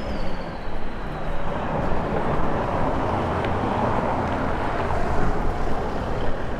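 Road traffic passing on a town street, with wind buffeting the microphone; a faint falling whine fades out in the first second and a half.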